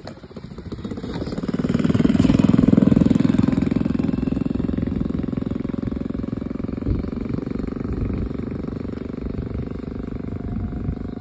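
An engine running with a rapid, even pulse. It grows louder over the first two seconds, then holds steady.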